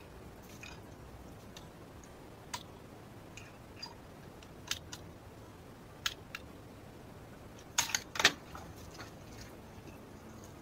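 Sharp metallic clicks and clacks of a rifle being handled and loaded between shots: scattered single clicks, then a louder quick cluster of clacks about eight seconds in.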